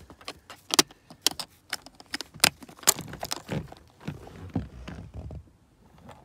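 Irregular clicking and light metallic rattling of an old bicycle spoke being worked into a car's plastic rear seat-release latch, metal tapping and catching on plastic. The clicks thin out near the end.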